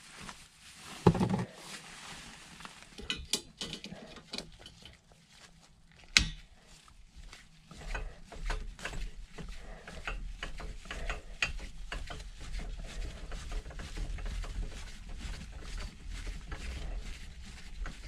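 Tubing cutter being turned around a copper drain pipe, making a steady run of short scraping clicks from about eight seconds in. Before that come a loud knock about a second in and a sharp click about six seconds in as the tool is handled.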